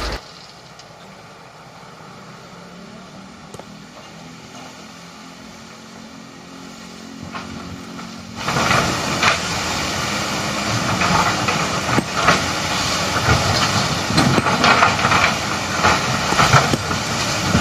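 Diesel engine of heavy earthmoving machinery running, with a low steady hum at first. About eight seconds in, it turns much louder, with a hissing noise and scattered knocks.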